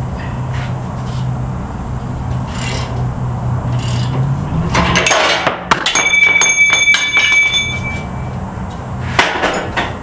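A C-frame press on a vise-held A-arm being wound in with a socket wrench, making repeated ratcheting strokes, until the shaft and bushing break free. About five seconds in, the press and steel pieces fall onto the steel workbench with a clatter, and the metal rings for a couple of seconds; a few more knocks follow near the end.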